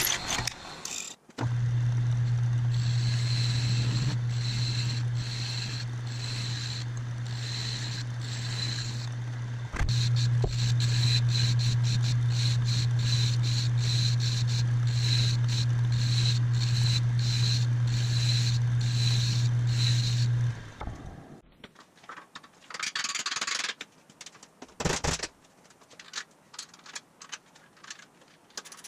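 About a second of a drill press cutting, then a metal lathe running with a steady low hum while turning a steel part, with a short break about ten seconds in. The lathe stops about twenty seconds in, and small metallic clicks and knocks follow as bolts and tools are handled on a steel frame.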